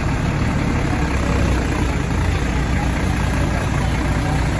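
Large vehicle engine idling steadily, a deep, even running sound.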